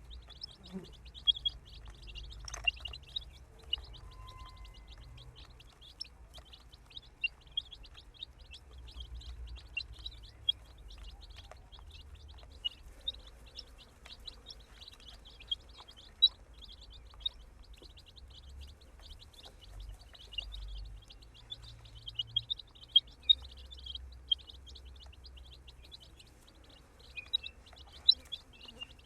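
Baby chicks peeping nonstop, many short high-pitched peeps overlapping, with some sharper, louder ones standing out, over a low rumble.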